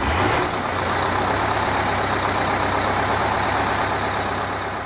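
A heavy vehicle's engine running steadily, a low hum under a broad even rumble, fading out near the end.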